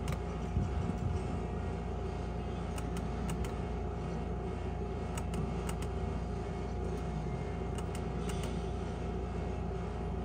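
Steady low hum of the room around a skill game machine, with a faint constant tone. Over it come pairs of short clicks every two to three seconds as spin after spin is started and stopped.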